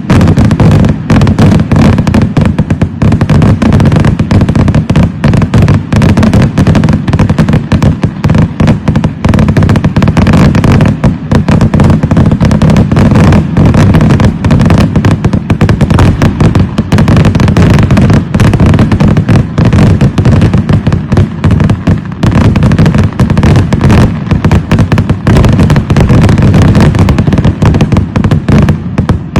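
Festival fireworks barrage: a dense, unbroken stream of very loud explosions and bangs with no pauses.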